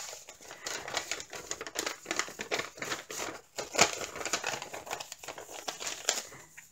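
Plastic packaging and paper crinkling as a diamond painting kit is handled, a run of small crackles and clicks with the sharpest crackle a little past the middle.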